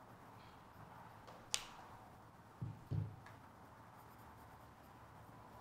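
Quiet room tone with a single sharp click about one and a half seconds in, then two short low thumps close together about a second later.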